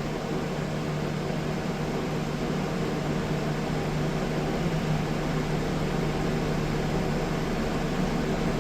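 Steady mechanical hum with an even hiss, unchanging throughout: running room background noise such as a fan or air conditioner.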